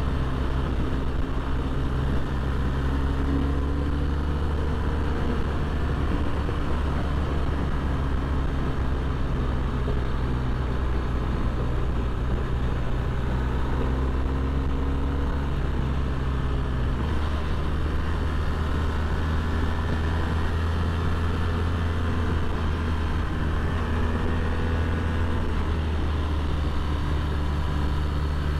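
Motorcycle engine running steadily under way, with road and wind noise. About two-thirds of the way through, the engine note shifts to a new pitch.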